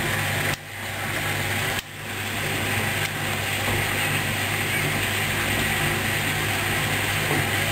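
Hoover Dynamic DYN 10124DP washing machine's motor turning the drum at the start of the first intermediate spin, a steady hum with a broad whirring. It cuts out briefly twice in the first two seconds, then picks up again and holds steady.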